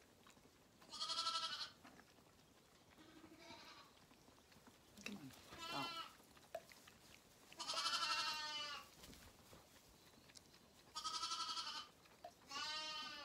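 Zwartbles lambs bleating, about six separate bleats a couple of seconds apart, some long and wavering, others short and faint.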